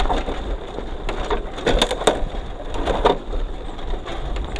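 Footsteps crunching through dry leaves and twigs, uneven steps coming down a steep slope.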